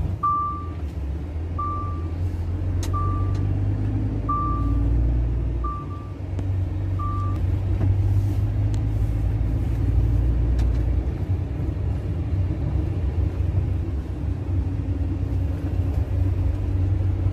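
Truck running along a rough road, heard from inside the cab: a steady low engine and road rumble. Over it, a single-pitched warning beep sounds about every second and a half, six times, and stops about seven seconds in.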